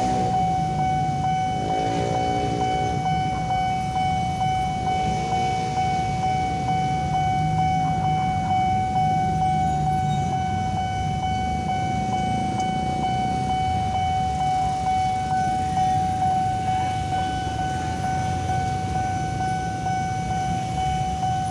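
Railway level-crossing warning alarm sounding one steady, unbroken high tone while the crossing is closed for an approaching train. Road traffic runs beneath it, with a couple of vehicles revving past.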